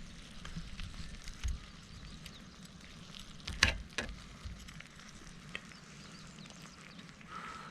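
Campfire of burning wood crackling softly, with scattered small pops and one sharper, louder crack about three and a half seconds in.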